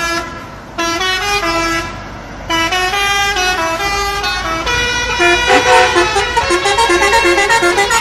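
A horn sounding a tune: a brassy tone stepping through a run of short notes in phrases, with brief pauses between them and faster notes in the second half.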